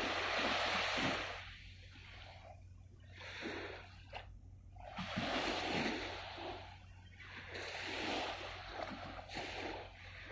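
Small waves lapping and washing against the shore in about four slow swells, one every two to three seconds.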